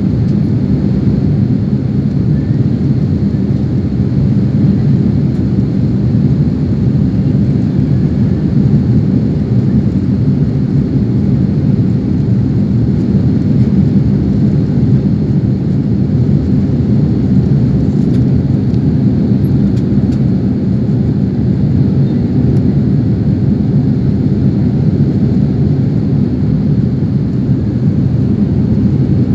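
Jet airliner cabin noise in flight, heard from a window seat: the engines and the air rushing past the fuselage make a loud, steady low rumble with no changes.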